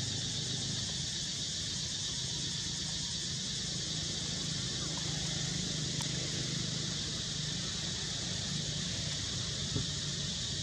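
Steady outdoor ambience: a constant high hiss like an insect chorus in the trees, with a low hum underneath and no distinct calls.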